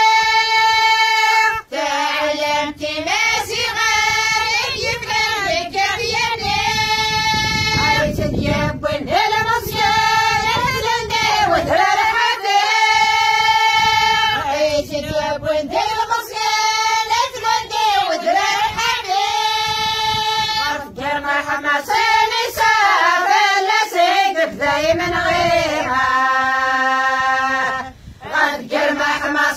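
A group of women singing a Kabyle song together in unison, unaccompanied, in long held phrases with short breaths between them.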